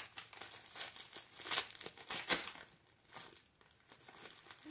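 A white mailer bag crinkling and rustling in the hands as it is opened, a run of irregular crackles with no steady rhythm.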